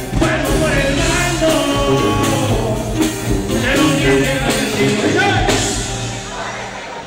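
A live norteño-banda group playing a corrido, with tuba bass and guitars under a lead vocal.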